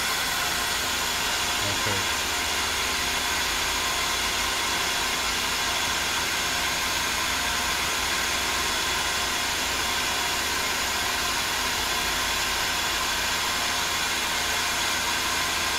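Live-tooling spindle of a Mazak CNC lathe spinning an end mill through a tornado circle-milling pass in the air, not cutting metal: a steady, even whir with a constant hum.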